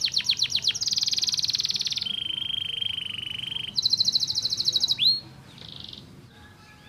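Domestic canary singing a run of fast descending sweeps, then a rapid high trill, a steady buzzing held note and another rapid trill. It stops about five seconds in, leaving only a faint short note and quieter warbling.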